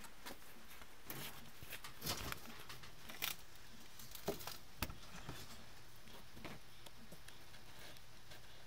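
Handling noise from a handheld camera being moved around: a string of faint rustles and clicks, mostly in the first five seconds, over a faint steady background.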